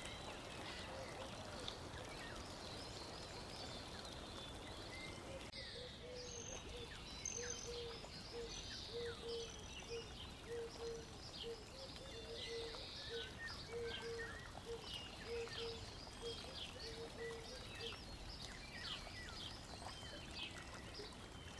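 Faint birdsong: many short chirps, and a lower note repeated over and over from about six seconds in until about seventeen seconds, over a soft steady hiss.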